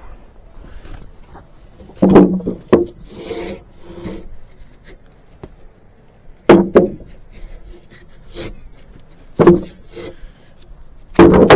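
Heavy wooden knocks as pieces of freshly sawn spruce lumber are handled and dropped against each other: about five hard, ringing knocks spaced a few seconds apart, with lighter scraping of wood on wood between them.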